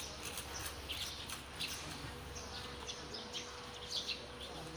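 Small birds chirping, short high chirps two or three a second at irregular spacing, over a faint steady hum.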